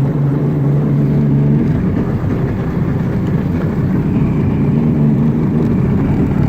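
A small boat's outboard motor running steadily under way through floodwater, with a low engine hum that is strongest in the first second and a half.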